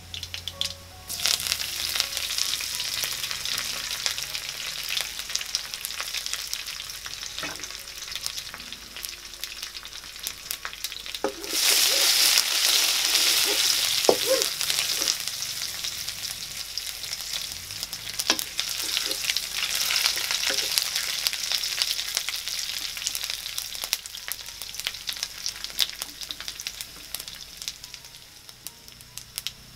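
Hot oil sizzling in a wok with chopped garlic frying. About a second in the sizzle starts up, and at about eleven and a half seconds it suddenly flares much louder as green chillies and curry leaves go into the oil, then slowly eases. Throughout, a wooden spatula scrapes and taps as it stirs.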